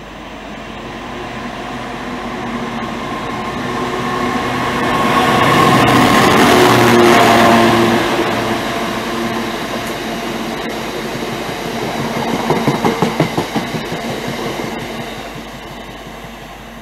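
A Class 66 diesel freight locomotive passing at speed, hauling a train of box wagons. Its two-stroke V12 engine note builds to a peak about six to eight seconds in. Then the wagons run past, with a quick series of wheel clicks over the track around twelve to fourteen seconds in, and the sound fades near the end.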